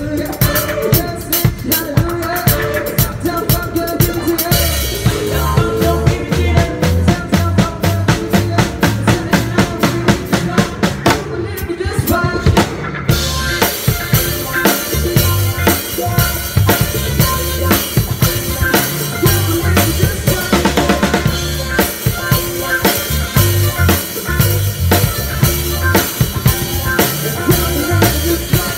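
Drum kit played close up, its snare, bass drum and cymbals keeping a steady groove over band music with a bass line. About eleven seconds in, the cymbals drop out for a second or two before the groove carries on.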